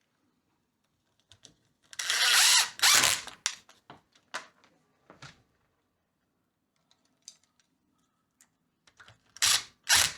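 Power drill driving the screws that hold the door latch plate into the door edge, in short runs. There is a longer run about two seconds in, a couple of brief bursts, a pause, and another short run near the end.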